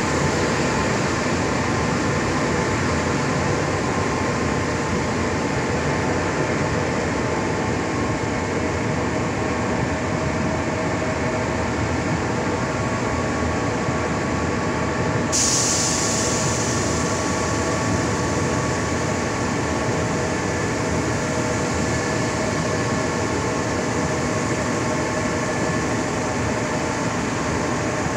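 Metre-gauge work train running along the track, heard from aboard the hauling vehicle: steady wheel-on-rail rumble with faint steady tones over it, and a brief hiss a little past halfway through.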